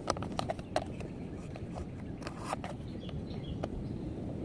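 Irregular small clicks and scrapes of plastic toy wheels and a thin metal axle being handled and pushed into a plastic toy car chassis.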